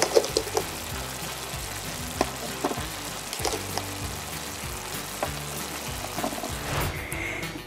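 Sizzle of frying, a play sound for a toy grill, with a few light clicks of plastic toy fish and spatula on the grill plate. Soft background music runs underneath.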